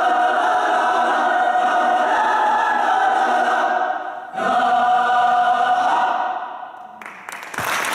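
Mixed choir singing a cappella, holding sustained chords. A little over halfway there is a brief break, then a new chord fades away to quiet near the end.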